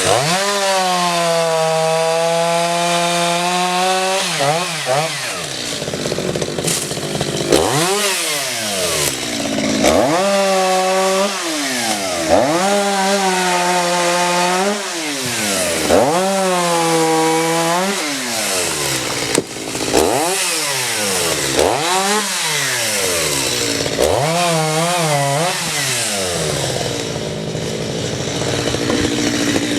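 Chainsaw engine running at a steady high speed at first, then revving up and down over and over, about every two seconds.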